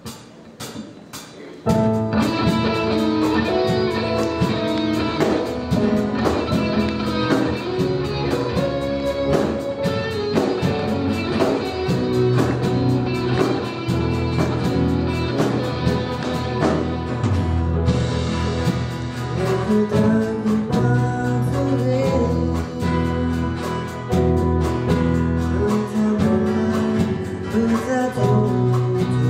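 A song being performed: singing over a plucked, guitar-like accompaniment, starting abruptly about two seconds in after a quiet opening.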